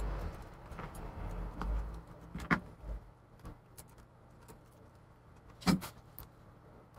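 Handling noises while working on an iMac's display panel and its adhesive backing strips: low knocks and rustling in the first couple of seconds, then scattered sharp clicks and taps. The loudest are two sharp clicks, one about a third of the way in and one near the end.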